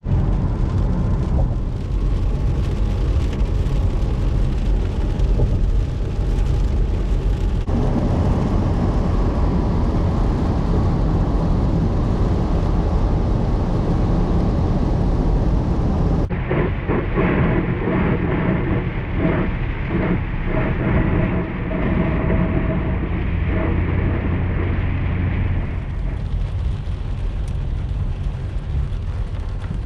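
Strong typhoon wind buffeting the microphone, a loud, steady low rumble that swells and dips in gusts. It changes abruptly a few times where separate clips are joined.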